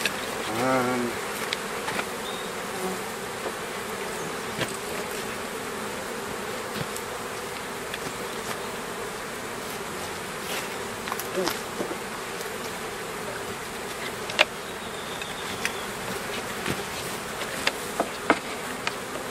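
Honeybees buzzing at the hives in a steady, continuous hum, with a few sharp clicks scattered through it.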